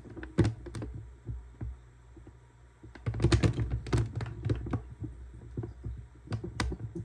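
Handling noise: an irregular run of small clicks, taps and knocks, busiest about three to five seconds in.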